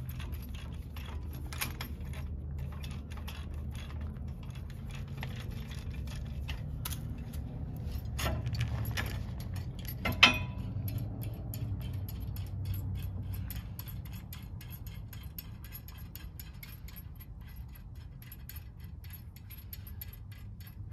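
Hand ratchet wrench clicking in quick, even runs as nuts are tightened on a truck's axle flip kit, with one sharp metal clack about ten seconds in.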